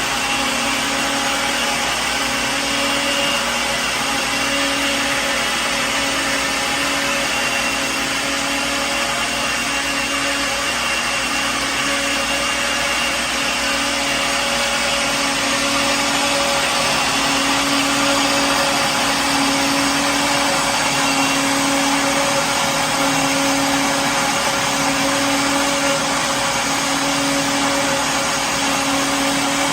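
Electric kitchen blender running steadily at constant speed, a loud whirring motor with a steady hum.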